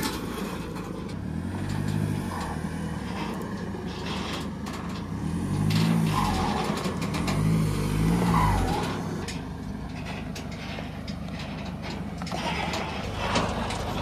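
Chevy Colorado's diesel engine towing an empty car-hauler trailer up rocky ground, revving up and easing off in three surges. Crunching and clicking from the tires and trailer run throughout.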